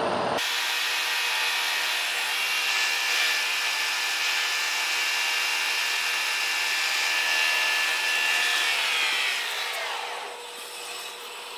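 Boring bar taking a cut inside the bore of a heavy-wall steel mechanical tube on an American Pacemaker lathe: a steady cutting hiss with a thin high ring. Near the end the sound slides down in pitch and drops in level as the cut ends and the lathe slows.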